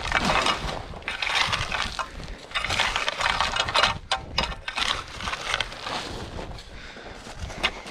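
Rake dragging through loose gravel in repeated scraping strokes, one every second or so, spreading and smoothing a freshly dumped load.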